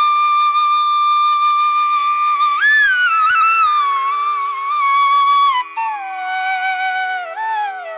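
Background music: a solo flute playing a slow melody over a steady drone. It holds long notes with small ornamental slides, and the melody steps down to lower notes in the last few seconds.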